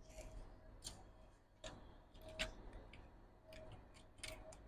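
Faint, irregular light clicks and taps of fingers handling the logic board and connectors inside an opened MacBook Pro.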